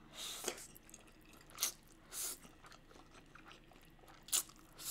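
Close-miked sounds of a person eating spicy instant noodles: a slurp of noodles at the start, then a few short, soft chewing and mouth sounds and a sharp smack near the end.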